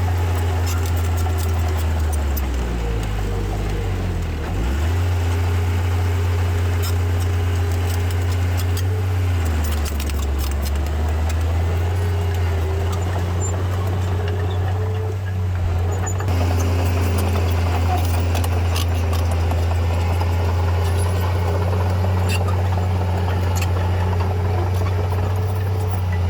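Heavy earthmoving machine's diesel engine running steadily, its pitch sagging and recovering twice in the first ten seconds as load comes on and eases, with scattered clicks and rattles over it.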